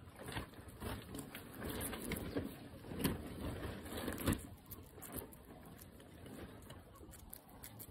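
A guinea pig chewing a slice of tomato: rapid chewing clicks, busiest through the first five seconds and sparser after.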